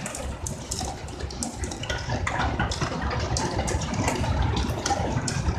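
Heavy rain falling, with many sharp, irregular drop splashes close by over a steady hiss and a low rumble underneath.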